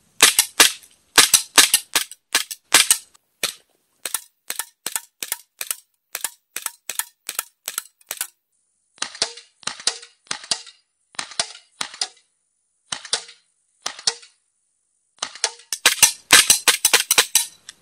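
FNX-45 airsoft pistol firing shot after shot in four quick strings of sharp cracks, with short pauses between the strings. The last string is the fastest and loudest.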